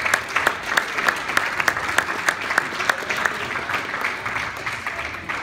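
A small crowd clapping, dense sharp claps that thin out and fade near the end.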